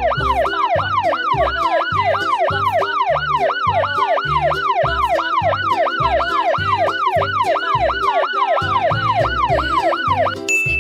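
Emergency-vehicle siren sweeping fast up and down, about three cycles a second, over background music with a steady beat; the siren stops near the end.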